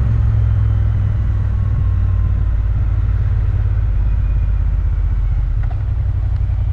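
Motorcycle being ridden at a steady pace, its engine and the rush of the ride making a deep, even drone.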